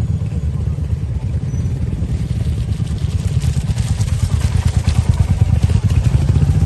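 Royal Enfield 350 single-cylinder motorcycles running at low revs as they ride slowly together, their engines making a steady low thumping. From about three seconds in, rattling and clattering joins it.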